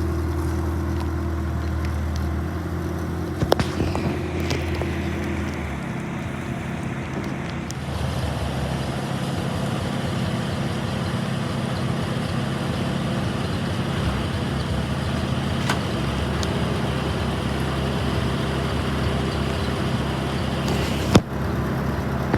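Clarktor aircraft tow tug's engine running as it is driven, its note shifting several times, over a steady hiss of rain. A sharp click sounds near the end.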